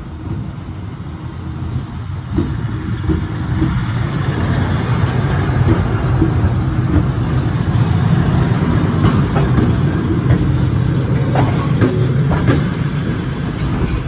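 EP2K electric locomotive and its mail train pulling into the station past the platform: a steady low rumble of wheels on rails that grows louder about two seconds in, with a few sharp clicks from the wheels in the later seconds.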